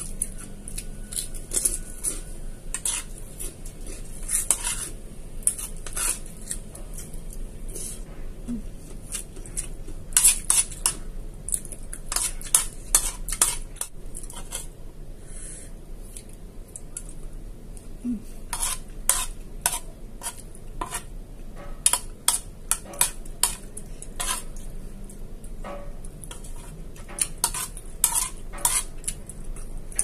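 Metal spoon scraping and clinking against a ceramic plate as food is scooped up, in irregular clusters of sharp clicks.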